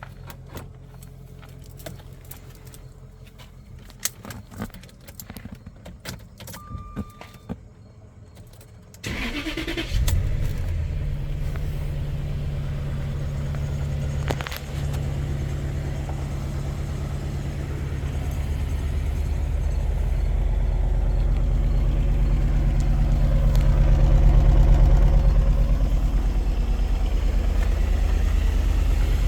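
A few small clicks and rattles, then about nine seconds in the 2004 Jaguar XJR's supercharged 4.2-litre V8 cranks and catches with a short rising whine and settles into a steady idle that grows louder later on. The idle sits below its proper speed and runs rough, which the owner says makes the supercharger clank.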